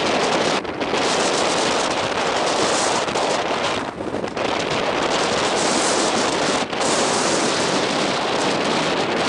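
Wind rushing over the camera microphone: a loud, steady rushing noise that drops away briefly three times, about a second in, near the middle and after about seven seconds.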